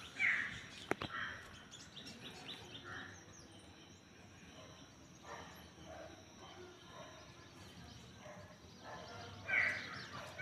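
Birds chirping, with two louder calls near the start and near the end, and a sharp click about a second in, over a steady high-pitched hiss.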